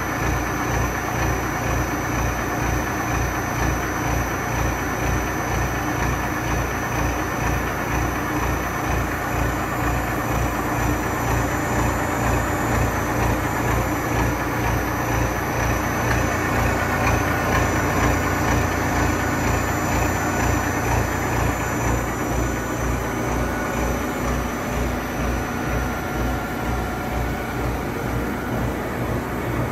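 YK3180 CNC gear hobbing machine cutting a gear: a steady mechanical running sound with a regular low throb and a few thin high tones. The high tones fade a little near the end.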